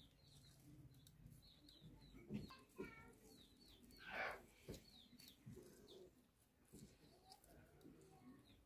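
Faint birds chirping in the background: many short, high chirps repeating throughout, with a brief louder sound about four seconds in.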